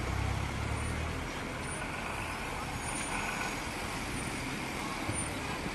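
A heavy vehicle's engine rumbling low at the start, fading out after about a second, over a steady hiss of outdoor street noise.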